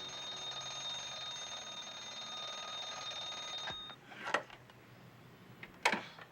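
Alarm clock ringing, cut off about four seconds in, then two sharp knocks about a second and a half apart.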